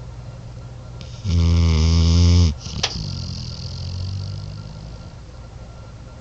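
A morbidly obese dog snoring in its sleep. One loud, low snore comes about a second in and lasts about a second, followed by a short click and a quieter, drawn-out breath that fades away.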